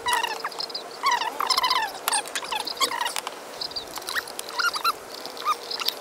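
Small birds chirping over and over in quick, overlapping bursts, with a faint steady hum underneath.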